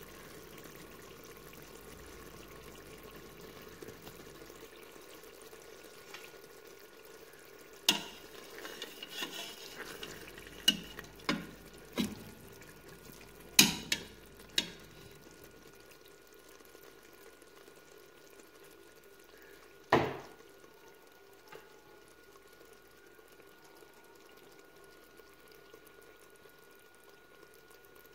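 Mooli gosht frying in a pot with a faint, steady sizzle. A metal spatula stirs it, knocking sharply against the pot several times in the middle, with one last, loudest knock about two-thirds of the way through.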